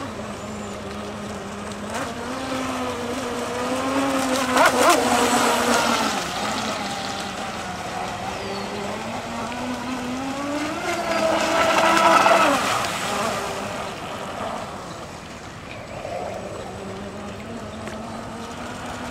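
Electric radio-controlled speedboat's motor whining as the boat runs on the water. The pitch rises and falls, and the whine grows loudest twice, about five seconds in and again about twelve seconds in.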